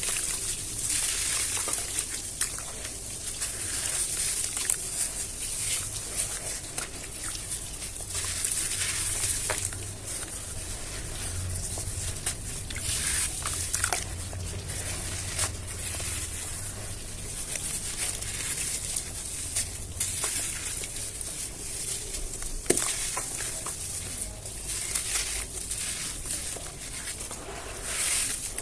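Chunks of hardened cement and sand crumbled and crushed by hand: a steady crunchy crackle of many small breaks, with grains pattering down.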